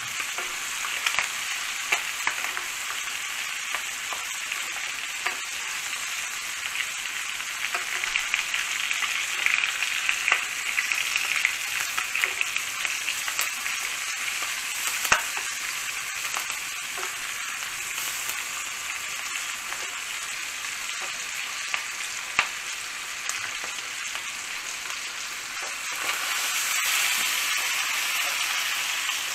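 Lamb shoulder searing in hot fat in a frying pan: a steady sizzle with scattered crackles and pops as the crust forms. The sizzle grows louder near the end.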